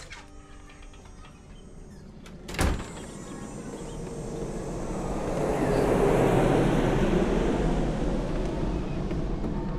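A door bangs shut about two and a half seconds in, then the rushing noise of a passing vehicle swells up and stays loud.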